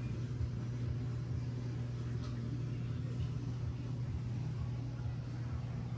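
Lionel O-gauge toy trains running on a three-rail layout: a steady low rumble and hum, with a few faint clicks.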